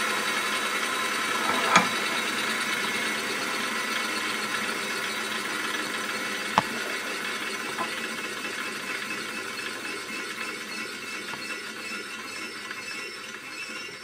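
Bench grinder running while a tungsten carbide rod, held in a steel holder, is ground flat against the wheel: a steady mechanical whirr that slowly grows quieter, with two sharp clicks about two seconds and six and a half seconds in.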